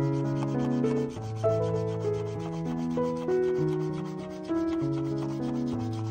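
Background music of held notes over a low bass line, with the rapid back-and-forth scratching of a paint marker's felt tip being scrubbed across paper.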